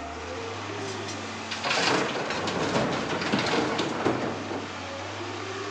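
Excavator working rock and soil with its bucket: about one and a half seconds in, a burst of rattling, clattering stone lasts some two and a half seconds over the steady hum of the running diesel engine.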